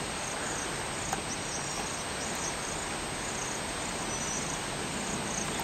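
Insects chirping in a steady rhythm, about two short high chirps a second, with a thin steady high whine, over an even outdoor hiss.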